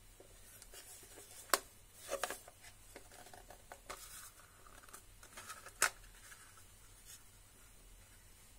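Hands handling and prying open a safety razor's hard travel case: soft rubbing and scraping with a few sharp clicks, the loudest about a second and a half in and again near six seconds, with a quick cluster of clicks around two seconds.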